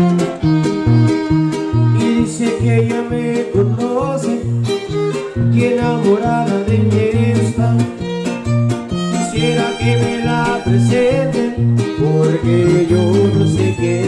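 Huasteco string trio playing an instrumental break: violin carrying the melody over a strummed jarana and the deeper strums and plucked bass notes of a huapanguera, in a steady rhythm.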